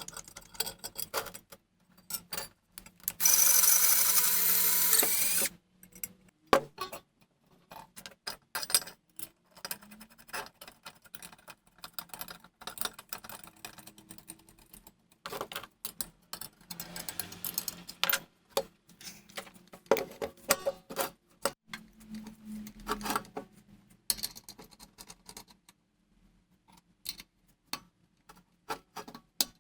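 Workshop handling sounds: scattered clicks and taps of parts being worked by hand, with a loud burst of about two seconds from a power tool about three seconds in.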